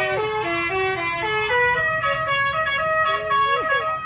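Bus "telolet" horn: a multi-tone musical air horn playing a tune of short steady notes that step up and down in pitch, moving to higher notes about two seconds in.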